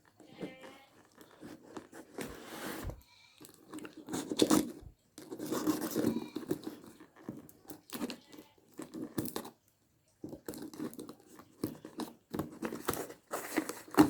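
Parcel packaging being torn open and handled by hand: irregular tearing and crinkling with sharp clicks, in short bunches with brief pauses.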